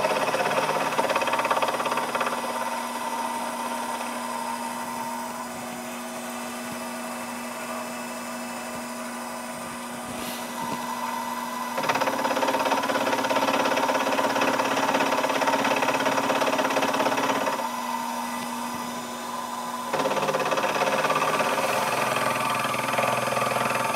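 Sherline vertical mill running, its end mill cutting a 30-degree chamfer into a metal strap clamp. The steady motor-and-cutting sound swells louder about halfway through, drops back for a couple of seconds, then rises again near the end as the cutter works in and out of the metal.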